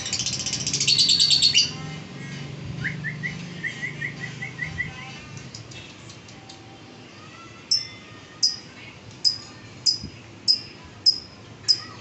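Lovebird chattering and chirping: a loud burst of rapid high chatter at the start, then a run of short rising chirps, and in the second half a string of sharp high single chirps, about one every two-thirds of a second.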